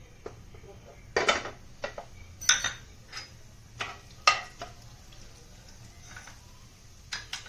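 Steel spoon clinking and scraping against a non-stick pan as whole cumin, mustard and fenugreek seeds are tipped into hot oil and stirred: a string of sharp clinks, most in the first few seconds and two more near the end.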